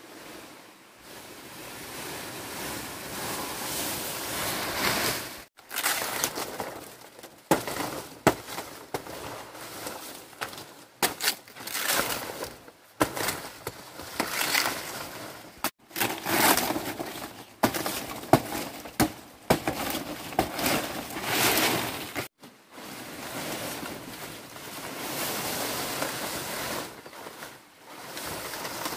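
Large fan palm leaves rustling and crackling as they are handled, in uneven stretches broken by a few short gaps, with several sharp snaps.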